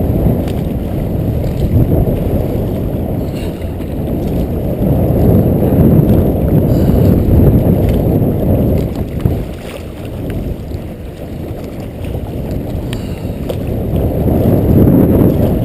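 Strong southerly wind buffeting the microphone: a loud low rumble that swells and eases. A few faint splashes of water from the kayak come through it.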